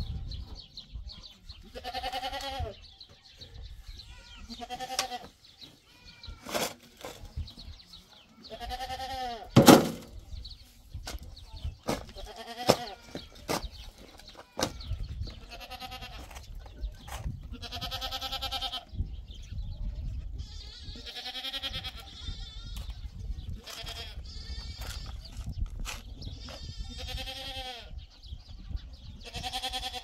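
Goats bleating, about ten separate calls spread through the stretch, with scattered sharp knocks; the loudest knock comes about ten seconds in.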